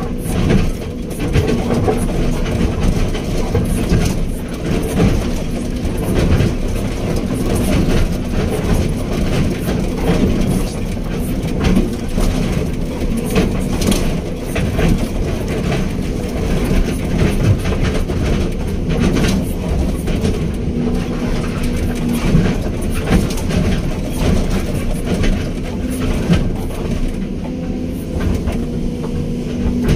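Hydraulic excavator's diesel engine running steadily under load, with frequent short clanks and knocks from the machine at work.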